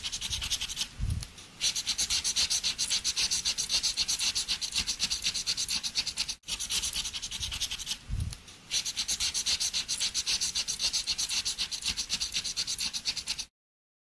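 Plastic scraper rubbing fast back and forth over a Svenska Spel scratch card, rasping off the scratch-off coating, with two short pauses and a sudden cut to silence near the end.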